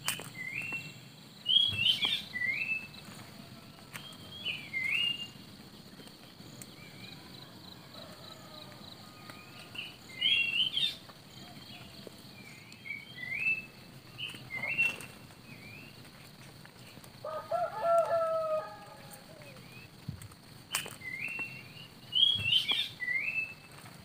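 Songbirds singing short, repeated whistled phrases in bursts, with a rooster crowing once about two-thirds of the way through.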